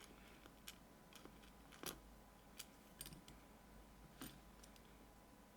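Faint, scattered light clicks of small metal lock pins and tools being handled, about half a dozen spread irregularly through near silence.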